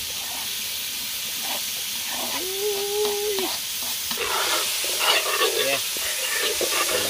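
Chopped carrot, pumpkin and scallion sizzling as they fry in butter in an aluminium pot over a wood fire. From about four seconds in, a metal spoon stirs them, scraping against the pot.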